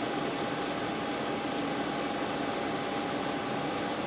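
Steady fan hum and air rush of an LG dual inverter window air conditioner running on its quiet sleep-mode fan speed. A faint high whine comes in about a second and a half in.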